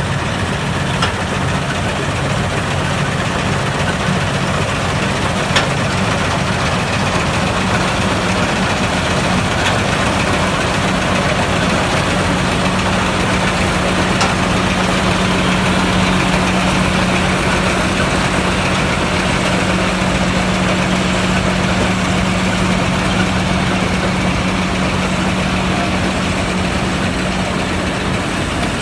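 John Deere 5310 tractor's diesel engine running steadily with a steady hum, powering a front-mounted Gahir multi-crop harvester that cuts and threshes standing paddy. A few light ticks sound over the machinery.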